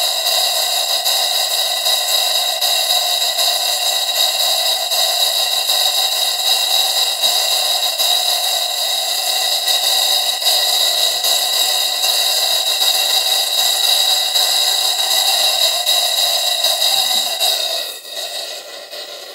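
Exhaust of two model steam engines, run on compressed air, blowing through a brass chuff pot with its chuffing assembly fitted: a very loud, steady hissing rush with whistling tones in it. Near the end it drops sharply to a much quieter hiss as the chimney is stuffed with a rag.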